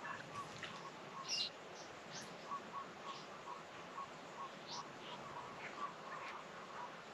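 Birds chirping and calling: a string of short, repeated mid-pitched notes throughout, with scattered higher, brief chirps over them.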